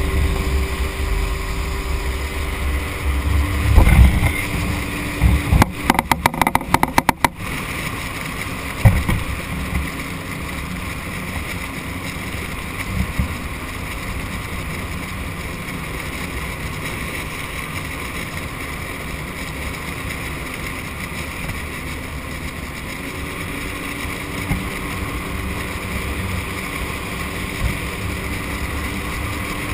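Outboard motor on a flat-bottom tunnel-hull boat running at a steady speed, with water rushing along the hull and wind on the microphone. A quick run of sharp knocks comes about six seconds in.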